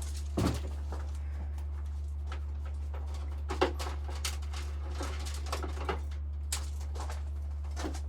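Small hand tools and wire being picked up and handled on a workbench: scattered short clicks and knocks, the loudest about half a second in and about three and a half seconds in, over a steady low hum.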